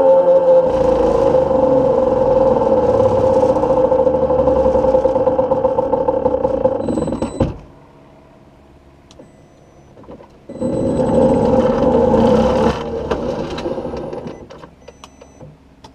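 Solar race car's electric drive whining steadily over road and wind noise, cutting off abruptly about seven and a half seconds in, coming back for about two seconds, then fading away. The drive keeps losing power, which the driver puts down to the battery management system tripping.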